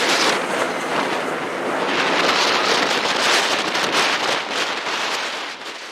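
Strong gusty wind rushing and buffeting the microphone, a loud, unpitched roar that swells and eases every second or so.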